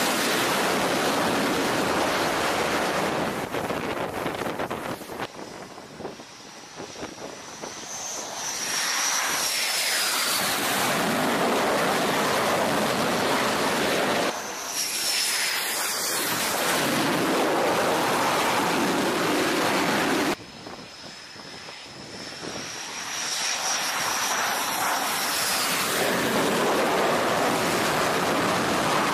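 F/A-18 fighter jet engines running at high power on an aircraft carrier flight deck, a loud rushing noise with a high turbine whine that slides down in pitch. The noise drops away twice and builds back up as the jets throttle up for launch.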